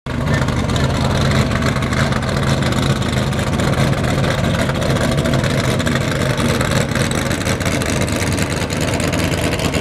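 An engine idling steadily, with a low hum that is strongest in the first few seconds.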